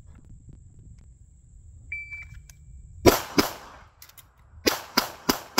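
Shot-timer start beep, then a CZ Shadow 2 pistol fired twice in quick succession. After a pause of about a second for the reload, it fires four more quick shots.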